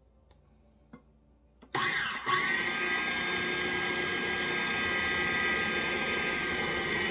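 KitchenAid 13-cup food processor switched on about two seconds in, its motor then running at a steady pitch as it mixes pie-crust dough while ice water is added.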